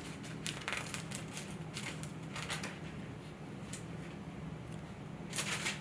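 Thin paper pages of a Bible being leafed through: scattered soft flicks and rustles over a steady low hum, with a slightly louder rustle near the end.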